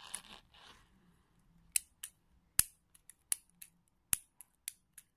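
Hard plastic clicks from a Beyblade Burst top's parts being turned and snapped by hand. After a faint rustle, a dozen or so sharp clicks come at irregular intervals from about two seconds in.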